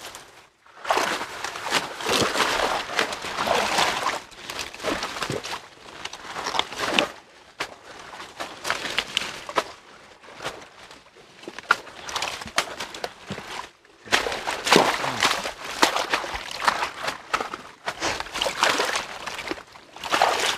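People wading through water hyacinth in a muddy canal: water sloshing and leaves rustling and crushing in long bursts as they push through the tangled plants, with quieter stretches between.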